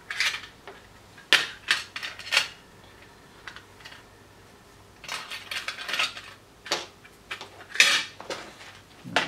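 Small hard plastic and metal parts being handled on a workbench mat: irregular clicks, taps and light clatter, thickest about five to six seconds in, with the loudest knock near the end.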